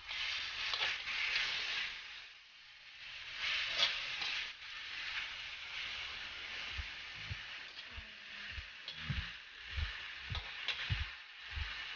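Chicken pieces sizzling in sesame oil in a wok, with a metal spatula scraping and stirring them. From about the middle on the sizzle eases and a run of dull low knocks comes about twice a second as the pieces are turned with a fork.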